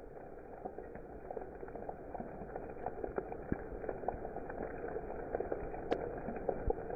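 Rain falling, a steady patter with many individual drops ticking, growing slightly louder.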